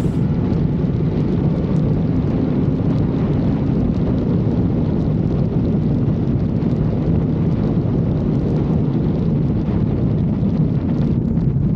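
Kawasaki Z900's inline-four engine running at a steady pitch while the motorcycle cruises, mixed with wind rushing over the microphone.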